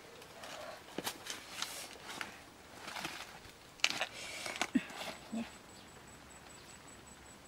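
Rustling and crackling as a bunch of ripe bananas and its dry leaves are handled, with a few sharp snaps and clicks as bananas are pulled from the bunch.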